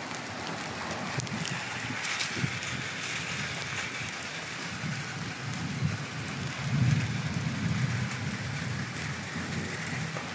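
Water pattering and running on a wet concrete tile roof, a steady hiss of falling drops, with a low rumble swelling around seven seconds in.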